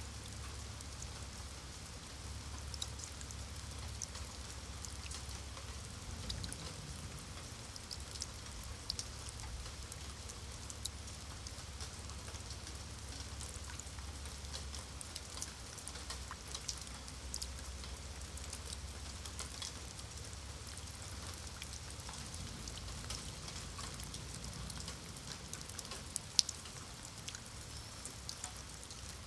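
Rain falling on wet stone paving: a steady hiss dotted with many small sharp ticks of individual drops striking the slabs, over a low background rumble, with one louder drop tick near the end.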